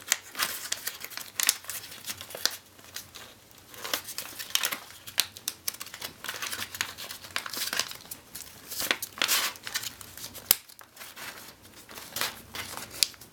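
Paper being folded and creased by hand: a continuous run of crinkling, rustling and sharp little crackles as the folds of an origami box lid are pressed and sharpened.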